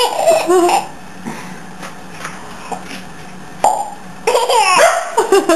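Baby laughing and babbling, then a sharp mouth pop made with the cheeks about two-thirds through, followed by more laughter.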